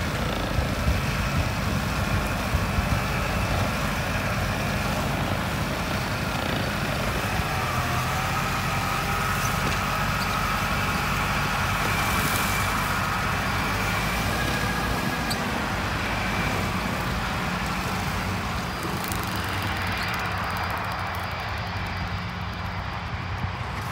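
Kubota tractor's diesel engine running steadily under load while driving a side-mounted boom flail mower, with a higher steady whine over the engine drone.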